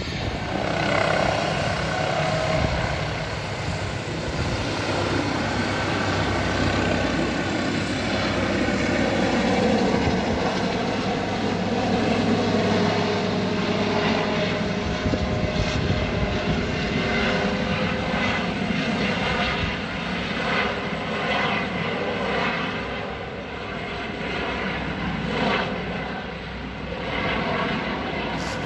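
Air ambulance helicopter's engines and rotor running at high power as it takes off and flies away. The sound stays loud and steady, turns more uneven about halfway through, and fades a little near the end.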